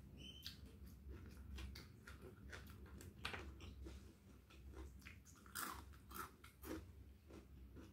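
Close-miked chewing of a mouthful of rice and fried tempeh: an irregular run of mouth clicks, smacks and small crunches.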